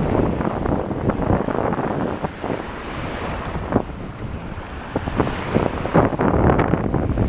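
Strong wind buffeting the microphone in gusts, with ocean surf washing onto the beach underneath.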